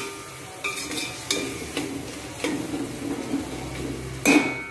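A spoon stirring chicken and masala in a stainless steel pot, scraping and knocking against the metal wall, with the pot ringing briefly at each knock. Underneath is a low sizzle of the chicken frying in oil. The loudest clang comes near the end.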